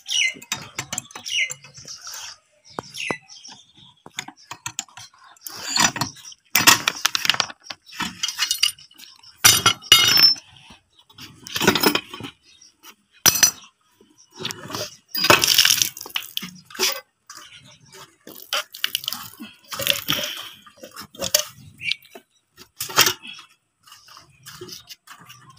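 Wrench and pliers clinking and scraping against the metal fittings of a hand water pump in irregular bursts of metal-on-metal knocks and rasps, as an old nut that keeps spinning is worked loose.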